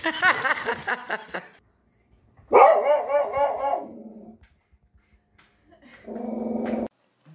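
Dog barking at a Halloween figure: high yips and barks in the first second and a half, then after a short pause a loud run of quick barks, and near the end a shorter, lower, steady call.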